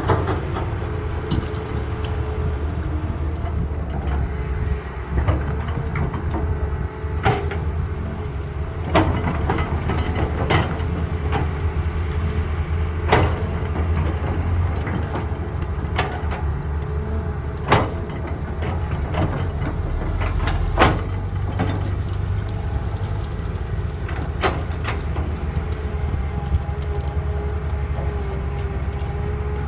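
Caterpillar excavator's diesel engine running steadily under load, with a faint steady whine above the rumble and sharp knocks and clanks every few seconds.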